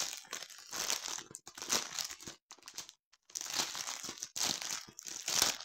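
Plastic packaging of a diamond painting kit crinkling as it is handled, in several rustling bursts with short pauses, the longest pause about three seconds in.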